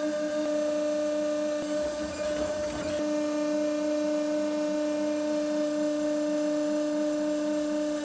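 Electric mini loader's hydraulic system whining at a steady pitch while it drives an 8-inch hydraulic auger into the ground. A brief rough noise cuts in about two to three seconds in.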